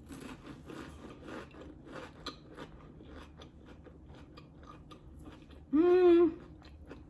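Close-up crunching and chewing of a saltine cracker topped with a smoked oyster, the crisp crunches thickest in the first few seconds. About six seconds in comes one short, loud hum of enjoyment, "mmm".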